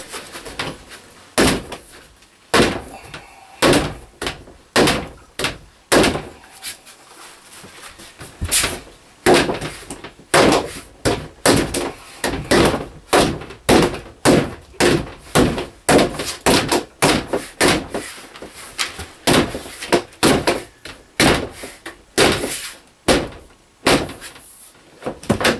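Repeated hard knocks on a plastic shower wall panel, struck by hand to seat it into its slot in the shower base, about one to two blows a second with quicker runs in places.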